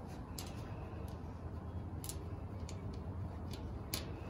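A handful of sharp, irregular clicks and taps from fastening hardware while a bolt goes in on a steel shed's gable. The loudest click comes near the end. A steady low rumble runs underneath.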